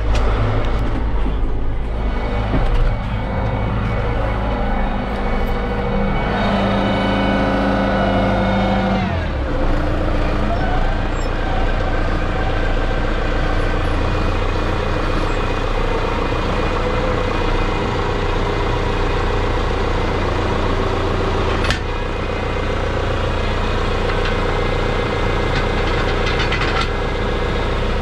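Farm loader tractor's diesel engine running, heard from inside the cab. Its pitch slides down about nine seconds in as the revs drop, and a single sharp knock sounds about three-quarters of the way through.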